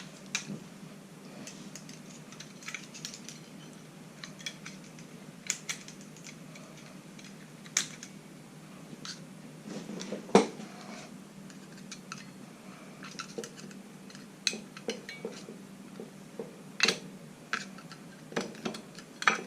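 Irregular small metallic clicks and taps as a flat-blade screwdriver works coil springs under the steel cam pins of a power feed's cam plate, with one sharper clink about ten seconds in.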